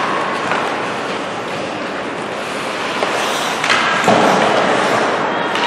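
Ice hockey game in an indoor rink: a steady wash of skates on the ice and arena noise, with one sharp knock from the play about three and a half seconds in.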